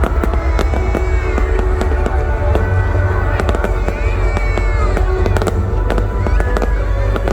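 Fireworks display: a rapid run of bangs and crackling bursts over a constant low rumble, with music playing along.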